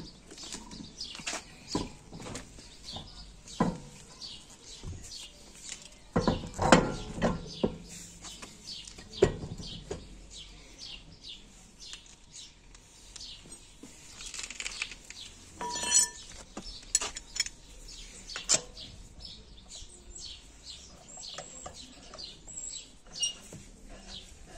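Clunks and knocks of a car wheel being hung back on its hub and its wheel nuts fitted, with a ringing metal clink about two-thirds of the way through. Birds chirp over and over in the background.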